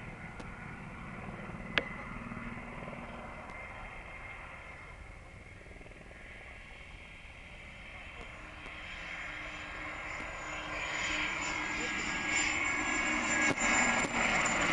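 Military helicopter flying a display, its rotor and engine noise growing steadily louder from about halfway as it comes in low overhead, with a beating rotor sound near the end. A single sharp click about two seconds in.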